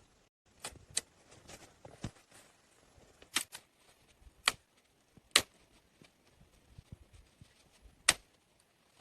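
A series of about eight sharp knocks at irregular intervals, the loudest about halfway through.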